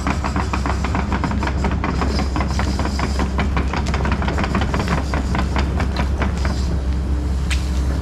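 Tracked excavator's diesel engine running steadily, with a fast, irregular clatter of metal clicks and knocks over it.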